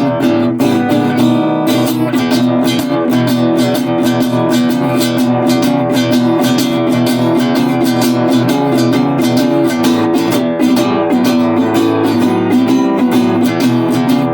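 Resonator guitar played with a pick: rapid picked notes over ringing low strings. The tone sounds shaky, which the player puts down to the camera's microphone not coping with the resonator's chorus.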